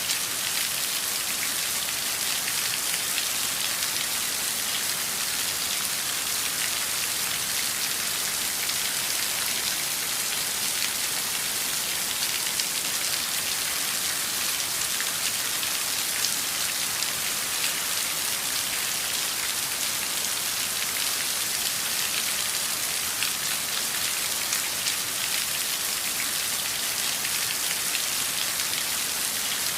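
Steady heavy downpour of rain, an even hiss with many small drop ticks that holds unchanged throughout.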